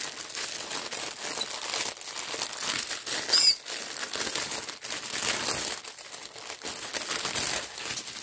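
Plastic packaging of a diamond painting kit crinkling continuously as it is handled and opened, with a brief high chirp about three seconds in.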